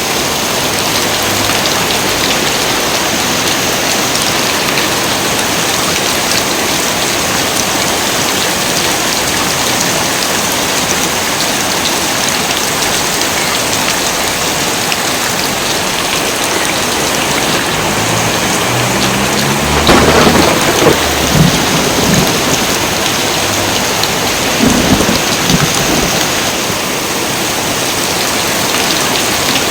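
Heavy, steady rain, with thunder rumbling in about two-thirds of the way through. It breaks into a loud clap and is followed by a few more cracks a few seconds later.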